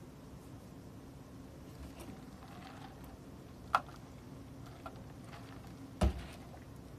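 Quiet room with a faint steady hum, a sharp click about four seconds in and a heavier thump about six seconds in, from a plastic cup of iced drink being handled and set down on a desk.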